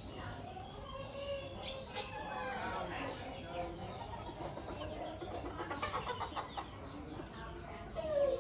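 Chickens clucking, several birds calling over one another, with a quick run of clucks about six seconds in and a louder call falling in pitch near the end.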